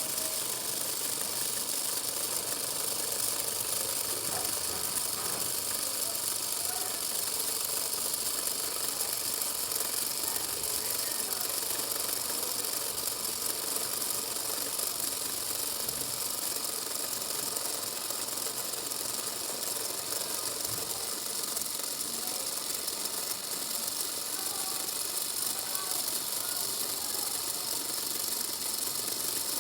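Small solar-powered toy motor and plastic gearbox whirring and clicking steadily as it drives a model dog.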